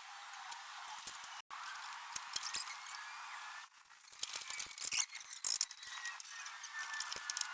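Fast-forwarded sound of hand-tool work in a car's engine bay: rapid, high-pitched clicks and metallic rattles, briefly cut out twice.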